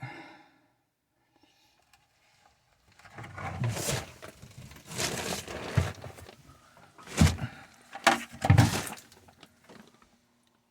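A run of clattering knocks of hard objects being handled and set down, starting about three seconds in, with the sharpest bangs near the end.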